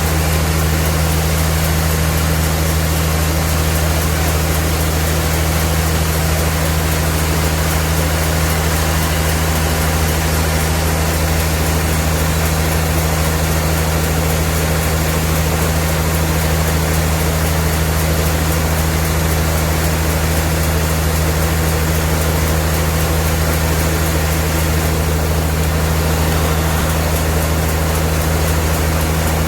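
Sawmill machinery running steadily: a low, even engine-like hum under a constant rushing noise, with no change in speed or load.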